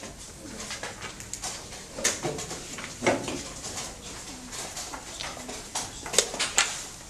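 Wooden chess pieces being moved and set down on the board, with a chess clock pressed: a few separate sharp clicks and knocks, two of them close together near the end, over faint room noise.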